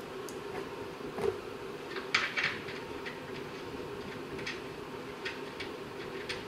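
Scattered clicks and taps from hand tools bolting a car's A/C condenser to the radiator, loudest as a close pair about two seconds in, over a steady low hum.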